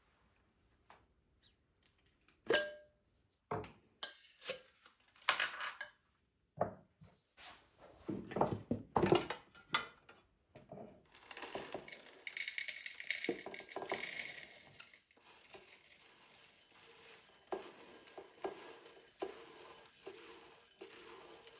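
Dishes and cutlery being handled in a kitchen: a run of separate clinks and knocks, one ringing briefly, then from about halfway a steady hiss with light taps and clicks over it.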